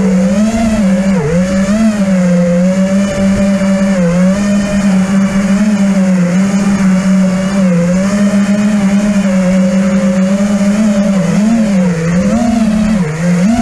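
FPV racing quadcopter's brushless motors and propellers whining steadily at close range, the pitch dipping and rising again several times as the throttle changes.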